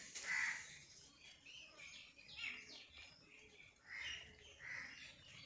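Birds calling: a short call right at the start, chirping about two to three seconds in, and two more short calls around four seconds in.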